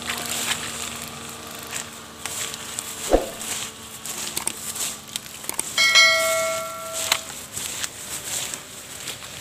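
A sharp click about three seconds in, then a bell chime ringing for about a second and a half: the click-and-bell sound effect of a subscribe-button overlay. Under it, early on, the faint steady whir of the toy air boat's small DC motors and propellers fades away.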